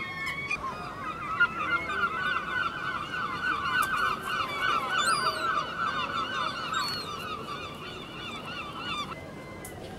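Herring gull calling in a long, fast run of short rising-and-falling yelping notes that breaks off shortly before the end.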